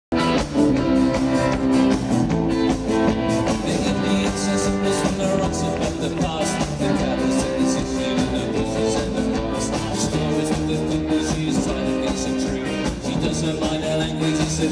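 Live rock band playing, with electric guitar and drum kit over sustained chords and a steady beat.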